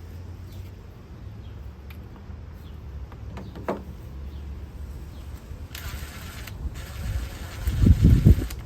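Plastic intake tube and silicone elbow boot being worked into place by hand, rubbing and scraping, with a sharp click a little before halfway. A steady hiss sets in past halfway, and heavier bumps come near the end as the parts are pushed home.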